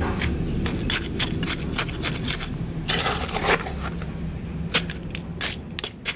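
Steel pointing trowel scooping a wet, stony sand-and-cement mix from a plastic bucket and pressing it into a flower pot: repeated gritty scrapes and clicks, with a longer scrape about three seconds in.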